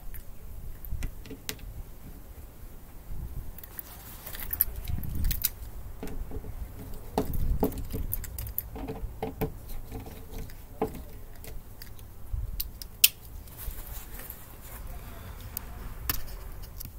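Small metal hardware clinking and clicking in the hands as a cover is fitted onto an LB conduit fitting: irregular light ticks and taps, with one sharper click about three quarters of the way through.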